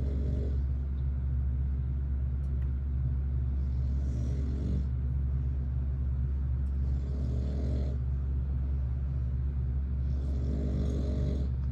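A man snoring, with a breathy snore about every three and a half seconds, four in all, over a loud steady low hum that drowns much of it.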